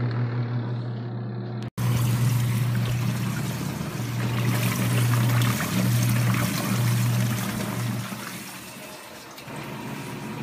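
Spin basket of a compact twin-tub washing machine running: a steady motor hum with water spraying off the clothes and trickling out. The hum stops about eight seconds in and the rush of water eases.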